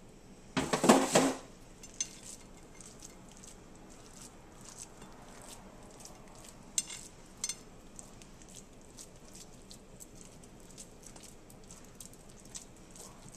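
Hands patting and pressing raw ground-meat mixture into a loaf in a glass baking dish: soft, faint squishing and patting. There is one loud clatter about half a second in, and a few light clinks around the middle.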